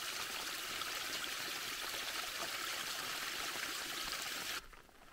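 Rainwater runoff from a road culvert flowing down a stony channel: a steady rush of running water that stops abruptly near the end.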